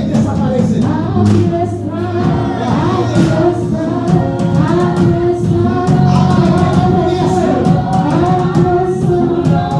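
Live church worship music: a band with electric bass, keyboard and congas playing while voices sing.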